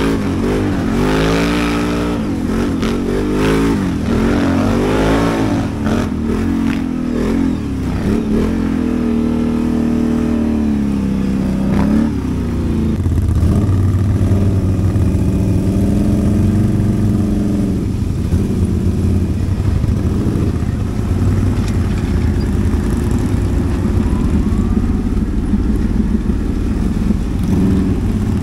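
ATV engine under way, its pitch rising and falling again and again with the throttle for the first dozen seconds, then running more evenly.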